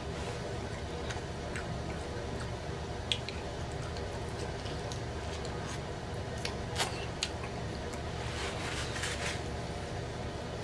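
Close-miked wet chewing and mouth smacks of a person eating ranch-dipped chicken wings, over a steady low hum. Short clicks and smacks are scattered throughout. About eight seconds in there is a brief stretch of denser rustling as the meat is pulled off the bone.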